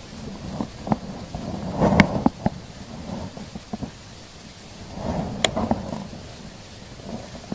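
Handling noise close to the microphone as gloved hands work a baitcasting rod, reel and line: a low rumbling rustle with scattered sharp clicks, swelling louder twice, about two and five seconds in.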